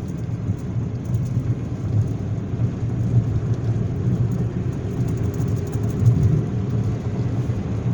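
Steady low rumble of tyres, wind and engine heard inside the cabin of a 2005 Volkswagen Jetta 2.5 cruising at speed.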